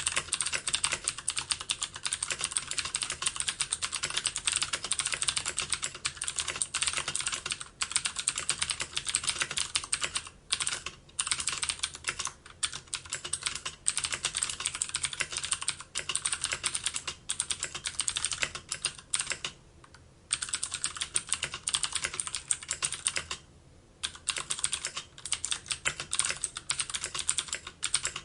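Fast continuous typing on a computer keyboard: a dense run of key clicks, broken by a few short pauses.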